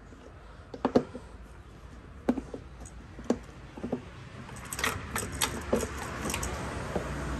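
Scattered light clicks and clinks of plastic and metal parts being handled as the new air filter is seated in the airbox of a Bajaj Pulsar RS200. The taps are sparse at first and come thicker in the second half.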